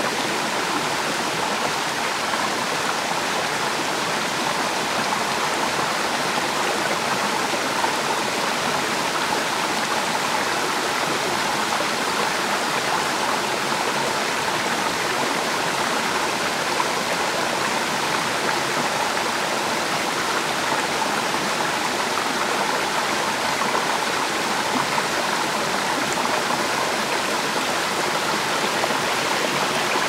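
Forest stream rushing over rocks: a steady, unbroken wash of running water.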